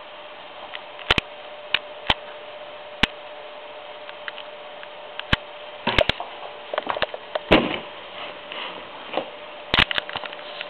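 Scattered sharp clicks and knocks from handling a handheld camera as it is moved around, over a steady hiss and a faint steady hum. The clicks bunch up about six to seven and a half seconds in and again near the end.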